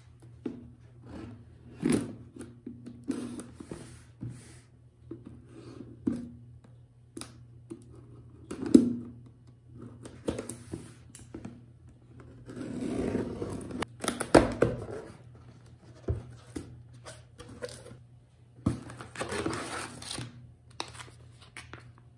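Scattered small knocks, scrapes and rustles of objects being handled, with a couple of longer rustling stretches, over a faint steady low hum.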